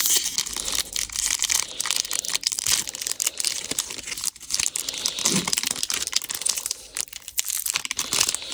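Wrapper of a Topps Finest trading card pack being torn open and crinkled by hand: a continuous crackle of dense small clicks and rustles.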